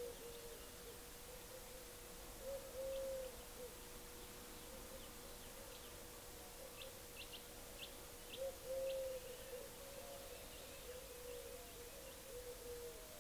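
Faint birdsong: a low hooting call comes twice, with a quick run of short high chirps between, over a steady faint hum.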